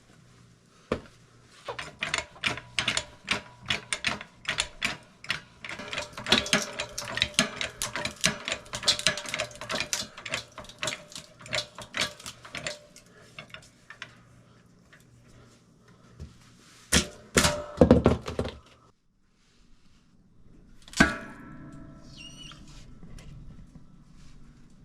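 Hand-pumped hydraulic log splitter being worked on a log: rapid clicking and knocking from the pumping for about the first twelve seconds, then a few loud sharp cracks about seventeen seconds in as the wood gives way, and another knock a few seconds later.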